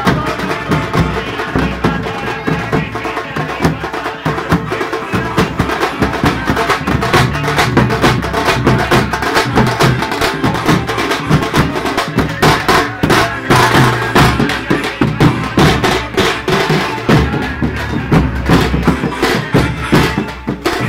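A street band playing live, dominated by loud, rapid drumming.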